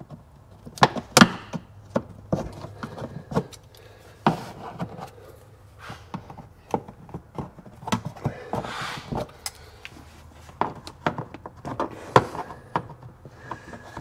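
Plastic push-pin trim clips being pried out of a side-by-side's plastic center console with trim clip pliers: a string of irregular sharp clicks and snaps, with a short rustle about nine seconds in.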